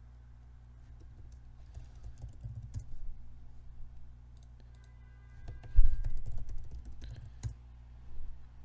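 Typing on a computer keyboard to enter commands, in two short bursts of key clicks about two seconds in and again around six seconds, over a steady low hum.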